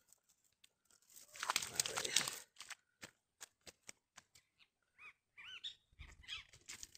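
Cast net mesh rustling and crinkling as tangled tilapia are worked free of it by hand, loudest in a burst about a second and a half in, followed by scattered small ticks. A few short rising-and-falling chirps come in near the end.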